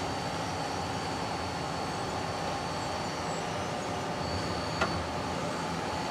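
Akira Seiki SL-20 CNC lathe running under power with its axes traversing: a steady mechanical hum with a faint high whine. One sharp click about five seconds in.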